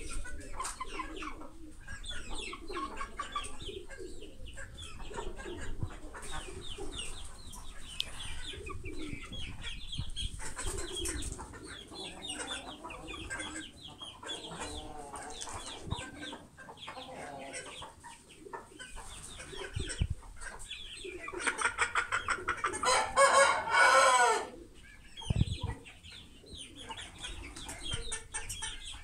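Aseel chickens clucking on and off, with one louder, drawn-out call about three quarters of the way through.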